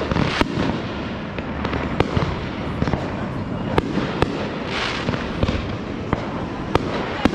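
Fireworks going off: about ten sharp cracks and pops at irregular intervals over a continuous hiss.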